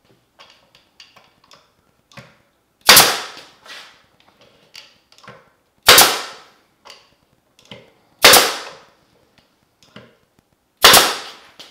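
Brad nailer firing brads into a plywood drawer frame: four sharp shots a few seconds apart, with faint clicks of the tool being handled and repositioned between them.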